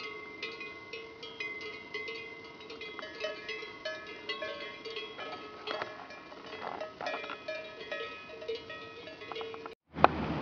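Cowbells clanking irregularly, many overlapping strikes with ringing tones. About half a second before the end they cut off abruptly, followed by a sharp click and a steady hiss.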